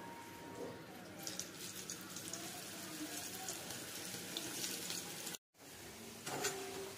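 Batter-coated soya chunks frying in hot oil in a kadai: a crackling sizzle that starts about a second in as the chunks go into the oil. It cuts out briefly about five seconds in, and a sharp, louder sound comes near the end.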